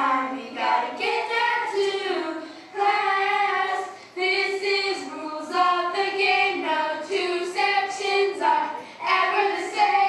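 Children singing a melody in held notes, phrase after phrase with short breaks between.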